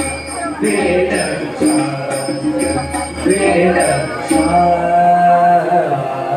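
Devotional bhajan singing kept in time by jingling hand percussion striking about twice a second. The jingling stops about four seconds in, and a single held note follows.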